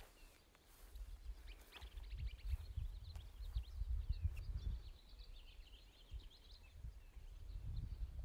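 Small songbirds chirping in quick high twittering series, busiest through the middle, over a low uneven rumble on the microphone.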